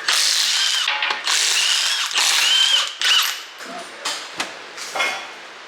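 Impact wrench running in several back-to-back bursts of about a second each, whining and hammering as it breaks loose and spins off the lug nuts, then a couple of shorter bursts near the end.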